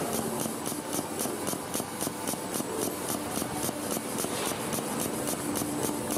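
Automated car-factory production-line machinery running: a steady mechanical hum with fast, even, high hissing ticks, about five a second.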